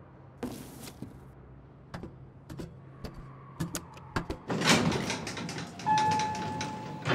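Elevator doors opening and sliding, with clicks and metal knocks, over a low steady hum. Near the end a steady electronic beep sounds for about a second.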